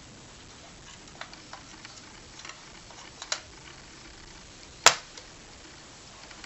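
DDR2 memory stick being pressed into a motherboard slot: a few faint plastic clicks and taps, then one sharp snap about five seconds in as the module latches into place.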